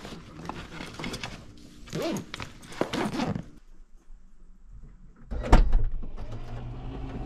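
A fabric backpack being handled and rustled, then after a short pause a car's power liftgate unlatching with a loud thunk, followed by the steady hum of its motor as it lifts open.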